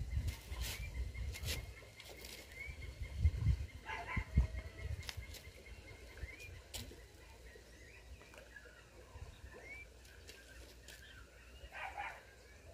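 Riverbank ambience: wind rumbling on the microphone in gusts, with a bird chirping faintly and repeatedly and a few light clicks.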